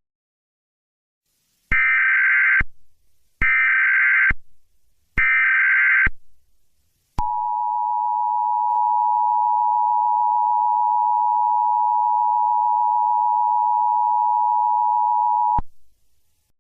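Emergency Alert System tones: three short bursts of SAME header data, each just under a second and about a second apart, then the two-tone EAS attention signal held steady for about eight seconds before cutting off sharply.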